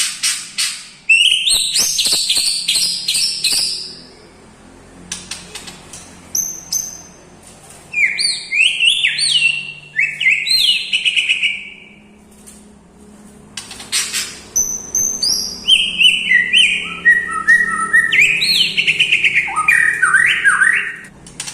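White-rumped shama (murai batu) singing in loud bursts: a fast stuttering trill opens it, followed by clear whistled notes that slide up and down, with short pauses between phrases. The song is filled with imitations of other birds such as the lovebird.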